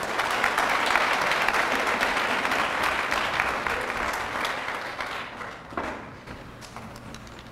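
An audience applauding. The clapping starts at once, holds for about five seconds, then dies away.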